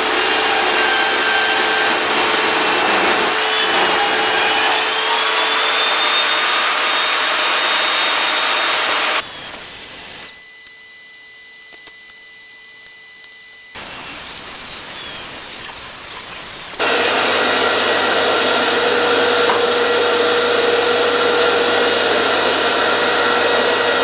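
Evolution Rage 5S saw running with the blade guard off, ripping a narrow strip from a board under heavy load. The first cut ends about nine seconds in and the motor winds down. The saw is then started again, runs free, and a second rip cut begins about seventeen seconds in.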